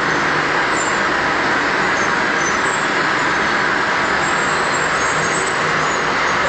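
A steady, loud rushing noise that runs on without pauses or distinct events.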